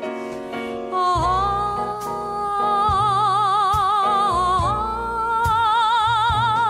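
A slow, sad Mandarin pop ballad: a singer holds long notes with strong vibrato, with a gentle low accompaniment underneath.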